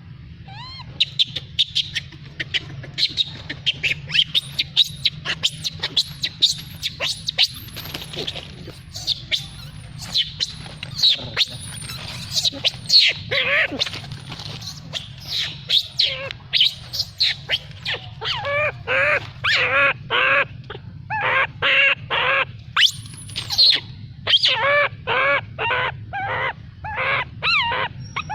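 Birds calling: a dense run of short chirps and sweeping whistles, then from about two-thirds of the way in a series of rapid, evenly repeated calls, over a steady low hum.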